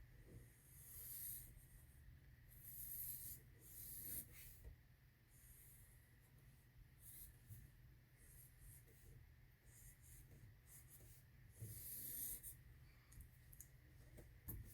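Faint strokes of drawing on paper, several longer strokes of about a second each, then shorter, more scattered ones.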